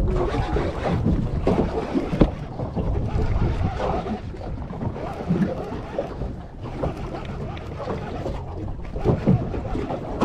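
Wind buffeting the microphone over water lapping against a small boat's hull, with scattered knocks.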